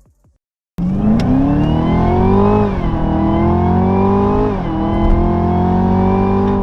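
Chevrolet Camaro ZL1's supercharged 6.2-litre V8 accelerating hard, cutting in suddenly about a second in. Its pitch climbs, drops sharply at two upshifts, then holds nearly steady near the end.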